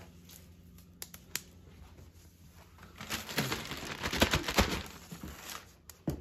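A plastic zip-top bag holding sand crinkles and rustles as it is handled, in a dense burst from about three to five and a half seconds in, after a few light clicks near the start.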